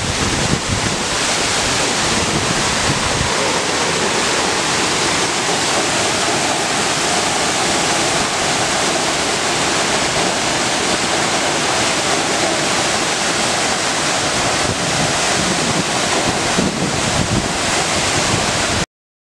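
Waterfall's falling water rushing steadily and loudly, cutting off suddenly near the end.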